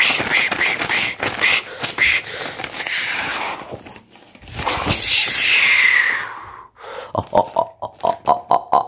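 A sheet of paper flapping and rustling as it is shaken and swung fast through the air, mixed with grunting, snorting vocal fight noises. A long swish comes midway. Near the end a fast run of short pitched grunts follows, about four a second.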